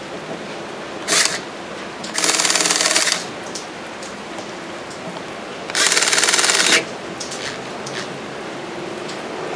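Three short bursts of a rapid mechanical rattle from a small machine, the last two about a second each, with faint ticks in between.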